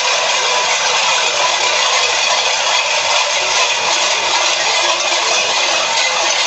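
Many cencerros (cowbells) clanging together without a break, a loud, dense metallic clatter.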